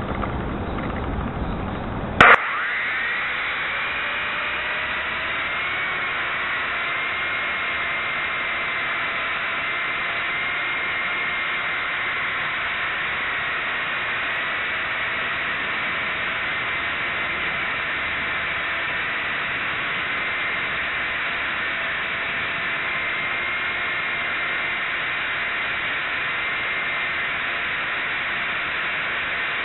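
Syma S022 Chinook RC helicopter's electric motors and rotors heard close up through a keychain camera taped to its underside: a sharp click about two seconds in, then a whine that rises as the rotors spin up and then holds steady over a hissing rush of noise.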